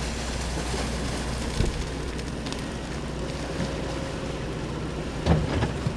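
Floodwater rushing steadily out of an opened culvert floodgate, with a low steady engine hum underneath and wind gusting on the microphone about one and a half and five seconds in.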